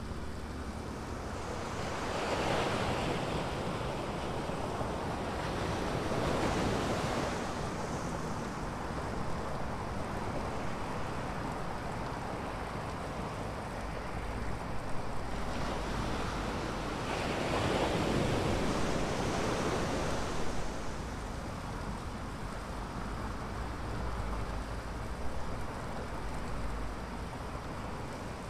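Ocean surf breaking on a sandy beach: a steady wash of waves with several louder swells as larger waves break, and wind rumbling on the microphone.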